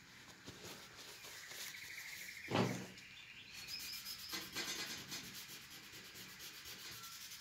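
A folded paper tissue rubbed over a charcoal drawing on paper, a soft scrubbing as the charcoal is blended into smooth tone, with one brief louder sound about two and a half seconds in.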